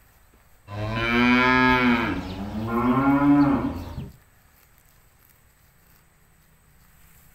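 A cow mooing once: a loud, three-second call in two parts, the second part rising and then falling in pitch.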